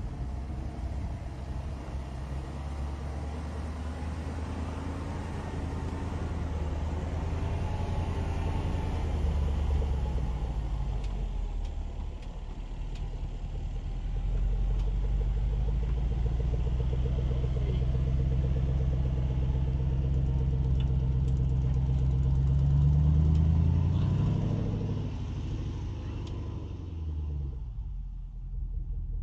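Range Rover Sport's supercharged 5.0-litre V8 running under load as the SUV drives past close by and climbs away up a slight incline. The exhaust rumble grows louder and rises in pitch about 23 seconds in, then fades as it drives off.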